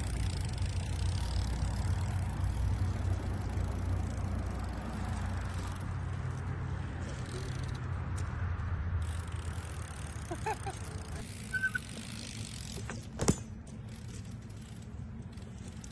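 BMX bike tyres rolling over smooth concrete, a steady low rumble that eases after about nine seconds, with one sharp smack about thirteen seconds in.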